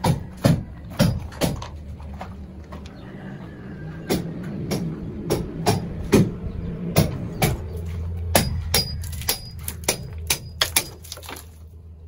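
Irregular sharp knocks and clacks, about one or two a second and coming faster near the end, over a steady low rumble.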